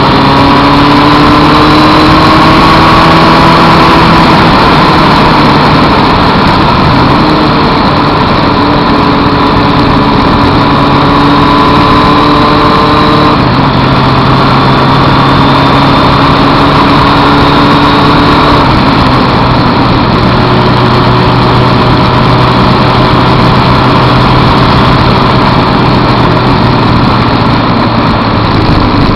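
Suzuki Hayabusa's inline-four engine running at steady road speed, its note shifting down a few times as the revs change, over a dense rush of wind and wet-road noise.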